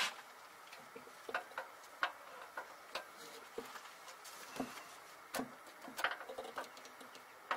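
Faint, irregular light metallic clicks and taps, a dozen or so spread unevenly, as a timing chain and camshaft sprocket are worked by hand onto the camshaft of a Toyota 5.7 V8.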